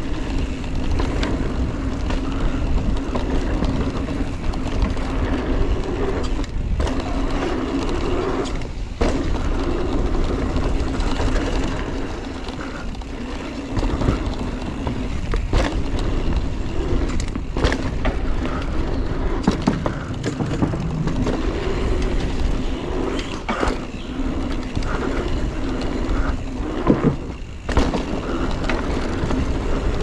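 2019 Giant Trance 3 mountain bike rolling fast down a dirt trail: continuous tyre noise on dirt with a low rumble and a steady hum, sharp knocks and rattles from the bike over bumps, and a few short breaks in the noise.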